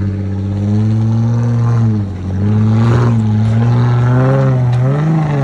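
Jeep Wrangler JKU's V6 engine revving up and easing off under load on an off-road trail. Its pitch sags about two seconds in, then climbs again, with another rise near the end.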